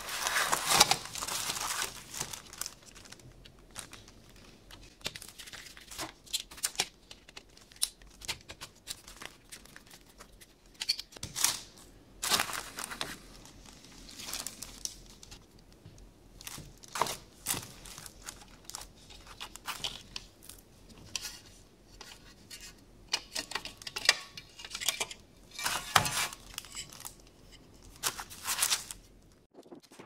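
Hands handling and taking apart the metal chassis, circuit board and hook-switch bracket of a rotary dial telephone: irregular clicks, taps and rustling, loudest in the first couple of seconds.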